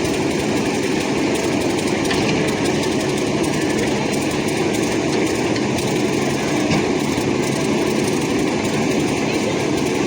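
A small engine running steadily at an even level throughout.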